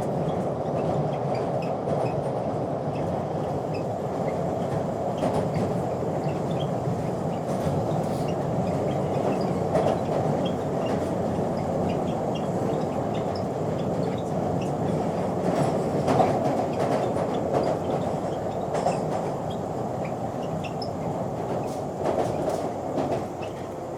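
Inside a London Underground train car running between stations: a steady rumble of wheels on the track, with scattered clicks and rattles. The level eases slightly near the end.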